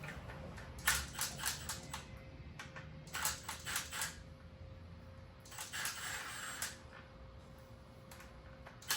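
Light metallic clicks and clinks of hand tools and bike parts being handled, coming in three short clusters of rapid taps.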